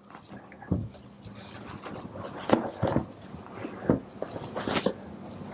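A person shifting position during a floor exercise: a few irregular soft knocks and rustles, with a brief hiss near the end.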